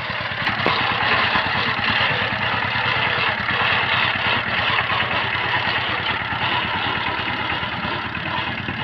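Two-wheel power tiller's single-cylinder diesel engine running steadily under load with a fast, even chugging while it pulls a loaded trailer. It grows slightly fainter near the end.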